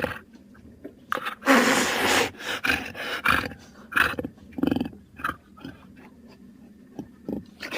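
Jaguar growling and snarling in a string of short separate bursts, with one longer hissing snarl about a second and a half in.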